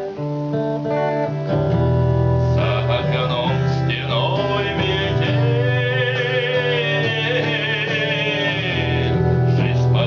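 A song with acoustic guitar accompaniment and a singing voice; from about halfway, a long note is held with vibrato.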